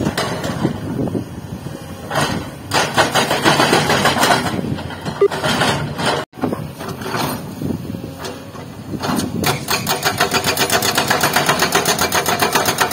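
Heavy construction machine's diesel engine running and working, its noise swelling and easing, with a brief break about halfway through and a fast, even pulsing in the second half.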